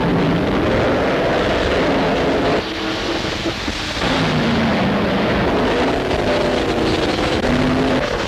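1930s Grand Prix racing car engines running at speed, their pitch rising and falling as the cars go by. The sound drops briefly about three seconds in.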